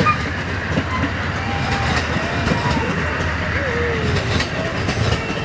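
Amtrak bilevel passenger cars rolling past, their wheels clicking over the rail joints as the train runs by.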